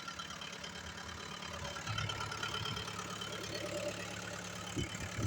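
Small Komatsu bulldozer's diesel engine idling steadily, with a couple of brief knocks near the end.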